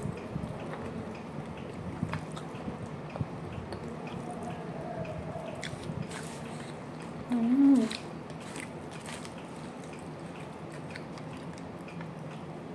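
Close-up chewing and small wet mouth clicks of a person eating rice with her fingers. About seven seconds in there is a brief hummed "mm".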